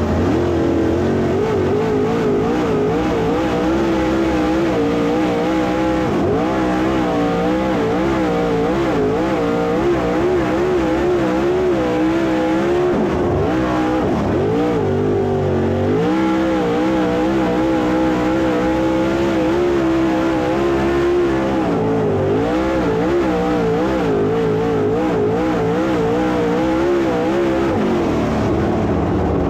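Dirt late model race cars' V8 engines running laps on a dirt track, the engine note wavering up and down continuously as the cars go around.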